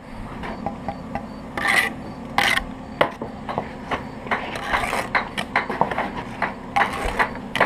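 Steel brick trowel scraping wet mortar across a brick course, with bricks rasped into the mortar bed and tapped into place, in quick irregular strokes over a steady low hum.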